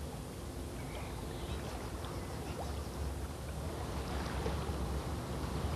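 A lake passenger boat's engine running with a low, steady rumble.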